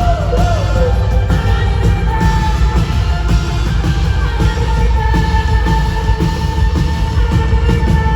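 Live pop-rock band playing loud, with heavy bass and drums and a long note held from about two seconds in, while the crowd yells and whoops along.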